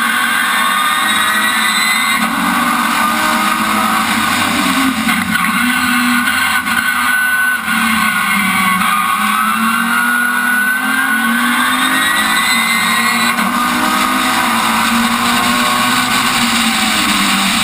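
Rallycross race car engine heard onboard at racing speed. The revs climb under acceleration at the start and again through the middle, easing off in between for corners, over steady wind and road noise.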